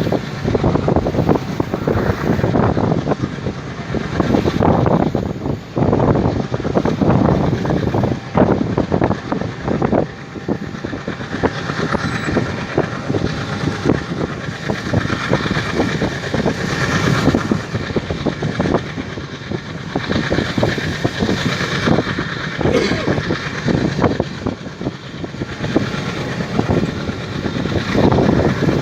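WDG3A diesel-electric locomotive's ALCO 251 turbocharged V16 engine chugging hard under load as it accelerates a passenger train. Rail noise runs underneath.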